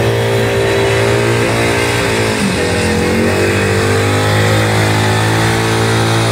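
Motorcycle engine held at high revs during a stationary burnout, the rear tyre spinning on the asphalt. The revs sag briefly about two and a half seconds in and climb back.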